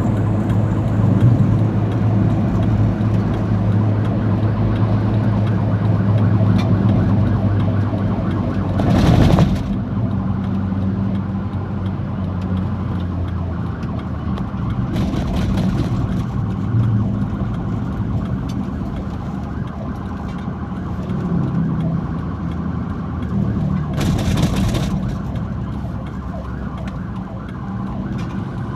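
Vehicle engine running with a steady low drone, broken by three short loud rushes of noise about nine, fifteen and twenty-four seconds in.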